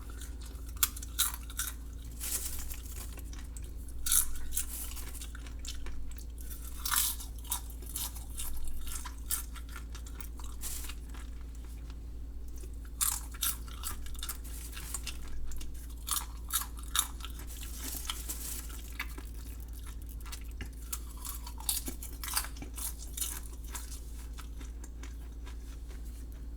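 Someone chewing mouthfuls of microwave popcorn: bouts of crisp crunching broken by short pauses, over a steady low hum.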